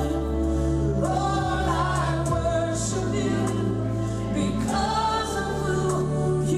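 Recorded gospel song playing for the dance: a choir singing over held bass notes and chords, the voices coming in about a second in and again near five seconds.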